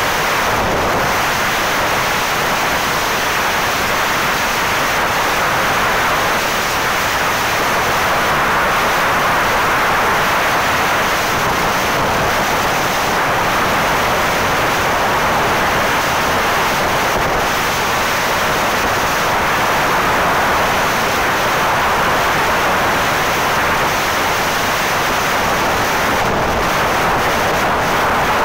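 Steady rushing road and wind noise from a vehicle driving along an asphalt highway, with no distinct engine note.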